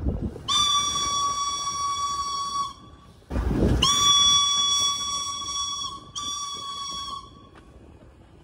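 Steam whistle of steam locomotive B 5112 blowing three blasts at one steady pitch: two long ones of about two seconds each and a shorter one of about a second. A brief rush of low noise comes between the first two.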